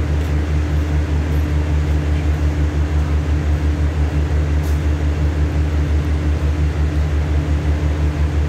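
Diesel engine of a stationary passenger train idling, a steady low hum with an even, rapid pulse.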